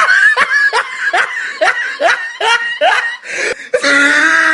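Person laughing in a rapid run of short, high-pitched snickering bursts, about three a second, with a longer held sound near the end.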